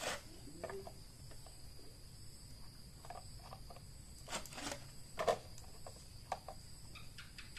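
Scattered light clicks and knocks of work on the fan's parts, the loudest a little past halfway, over a steady high-pitched chirring of crickets.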